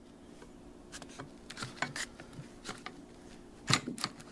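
Scattered light clicks and knocks as a rubber-and-steel strut mount is worked down over the threaded top of a strut shaft by hand, with a louder knock near the end.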